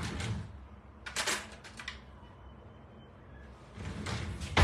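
Handling noises of things being picked up and moved: soft rustles at the start, a short clatter about a second in, and a longer rustle near the end.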